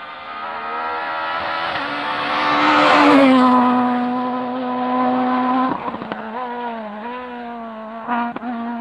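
Rally car approaching at speed on a tarmac stage, its engine note growing louder to a peak about three seconds in, then holding high and steady. The note dips and climbs again a few times in the last seconds, with a few sharp cracks, before cutting off abruptly.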